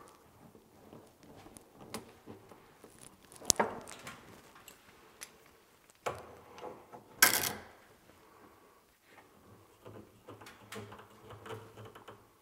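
Metal bar clamps with wooden handles being slid, set and tightened on cabinet panels: scattered clicks, rattles and light knocks, with a sharp click about three and a half seconds in and a louder short rattle about seven seconds in.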